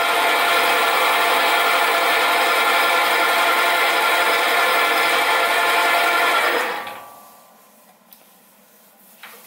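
Sieg SC4 mini lathe running steadily with a whine, turning a brass connecting rod held in its three-jaw chuck to trim a couple of thousandths off its sides. About seven seconds in the lathe is switched off and spins down to a stop, followed by a few faint clicks.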